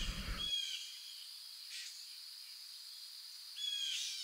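Faint woodland ambience: a steady high-pitched hiss with a few short, high chirps at the start and again near the end, and a soft rustle about four seconds in.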